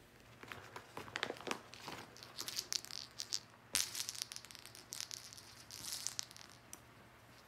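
A cat playing with a feather wand toy and a small green toy on a quilted bedspread: irregular scratchy rustles and crackles as it bats, grabs and tugs at them, with one sharper burst a little past halfway.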